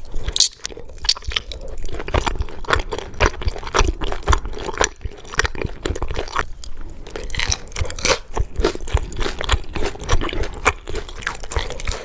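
Close-miked chewing of crunchy food: many crisp, irregular crunches, several a second.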